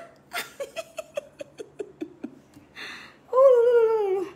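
A woman giggling in a quick run of short bursts. After a breath, she gives a long drawn-out vocal exclamation of delight that falls slightly in pitch.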